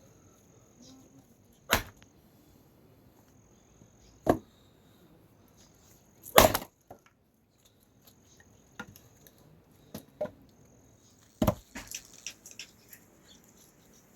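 Four sharp knocks, irregularly a few seconds apart, with smaller clicks near the end, over a thin high chirping like insects.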